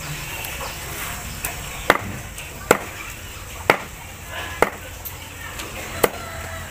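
Chopping food with a knife: about five sharp strikes spaced roughly a second apart, with a few fainter taps between them.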